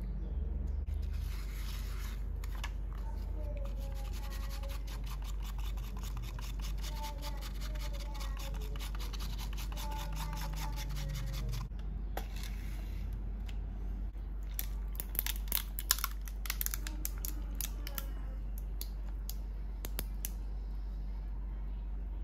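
Bamboo matcha whisk (chasen) whisking matcha and milk in a ceramic bowl: a fast, rhythmic scraping for about ten seconds. Later comes a short run of sharp, irregular clinks of ice cubes in a plastic cup.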